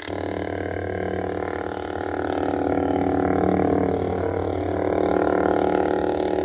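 Lightsaber soundboard playing through the saber's speaker: an ignition that comes in suddenly, then a steady low hum with many overtones.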